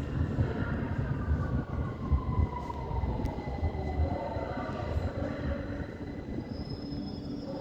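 London Underground Victoria line 2009 Stock train running with a low rumble, its motor whine falling steadily in pitch as it slows.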